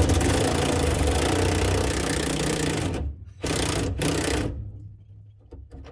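Power tool running in bursts: one long run of about three seconds, then two short bursts.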